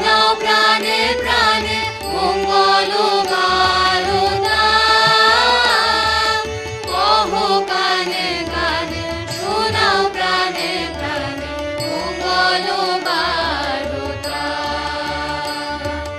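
Indian classical-style music with a melodic vocal line sliding and wavering in pitch over a low drone and pulse.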